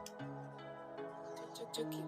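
Soft, calm background music with held notes that change every half second or so, with a few faint clicks.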